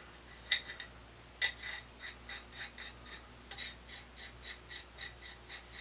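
Two light metal clicks, then a quick regular rasping of metal rubbing on metal, about three strokes a second from about two seconds in, as a machined part is twisted onto a steel tube by hand.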